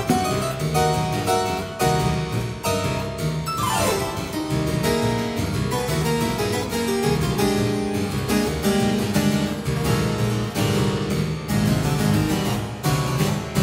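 Harpsichord playing a dense, rhythmic passage of quick plucked notes and chords. A brief falling glide cuts across the music about four seconds in.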